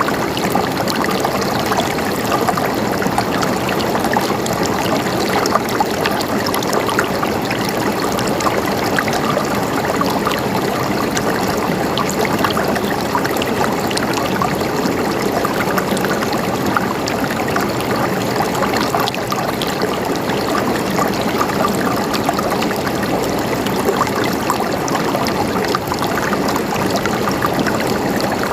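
Running water of a small stream or trickle, a steady splashing and gurgling.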